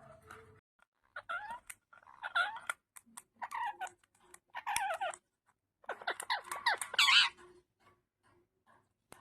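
Indian ringneck parakeet vocalizing in several bursts of warbling, chattering calls. The longest and loudest burst comes about three-quarters of the way through.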